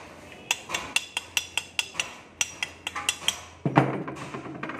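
Chipping hammer tapping slag off a weld bead on a steel plate: quick ringing metallic taps, about five a second for about three seconds, then one heavier knock.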